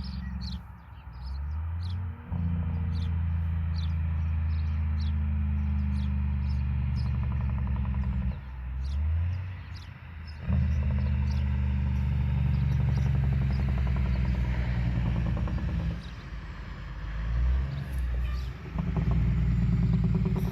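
Truck engine pulling under load, rising in pitch and dropping back several times as it shifts through gears.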